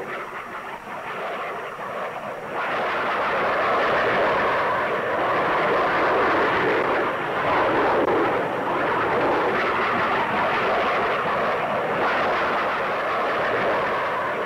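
Jet aircraft flying over in formation: a steady, noisy engine rush that grows louder about two and a half seconds in and then holds level.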